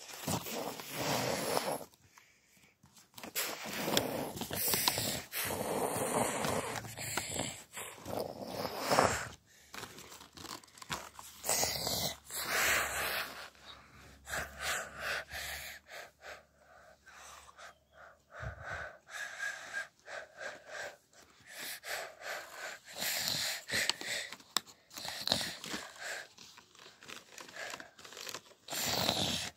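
A person's breathy mouth and breath noises close to the microphone, in irregular bursts of a second or two with short gaps.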